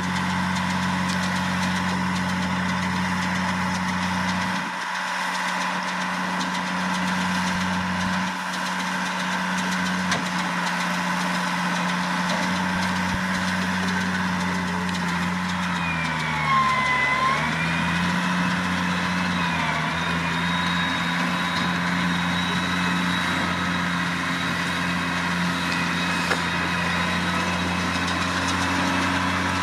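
New Holland T6070 tractor's six-cylinder diesel engine running steadily as it drives a Vicon RV1601 round baler. The engine pitch dips and recovers about halfway through.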